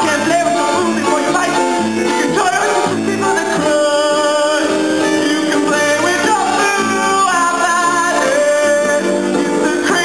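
A song from a stage musical: a male performer singing over instrumental backing.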